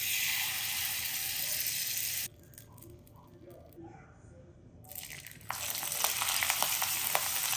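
Hot oil sizzling and crackling with rapid small pops as a ladle of prawn fritter batter is lowered into a wok, starting about five and a half seconds in. Before that, a steady hiss for the first two seconds, then a quieter stretch with a few faint clinks.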